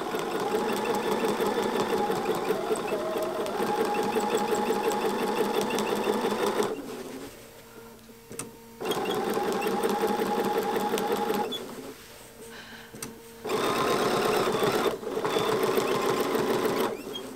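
Sewing machine stitching through a quilt with a walking foot, running in several starts and stops with short pauses between them. Thin steady tones ride on the machine sound: the walking foot squeaks a little, which the quilter blames on the fluffy wool batting, since oiling and cleaning out the fuzz have not cured it.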